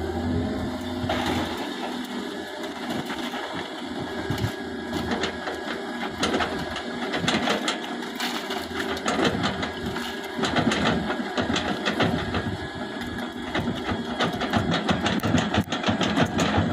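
Engine running with a fast, even clatter that grows stronger a few seconds in.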